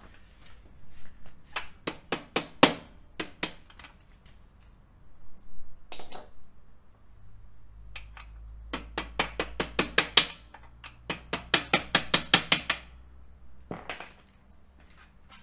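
Mallet taps driving a motorcycle frame slider's through-shaft further through the engine mount, to expose more thread on the far side. A few separate sharp taps come first, then two quick runs of about seven taps a second in the second half, and a last tap near the end.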